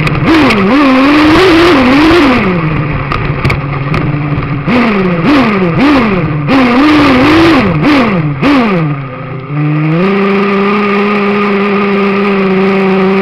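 Kyosho Inferno Neo RC buggy's small nitro engine, heard from a camera mounted on the car, revving up and down in quick throttle blips over and over, with knocks and rattles as the car bounces over rough ground. Near the end it drops to a low idle, then holds one steady pitch.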